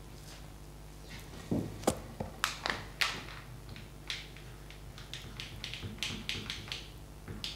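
A marker writing on a glass lightboard: a quick run of short scratchy strokes and taps of the tip as letters are drawn, starting about a second and a half in.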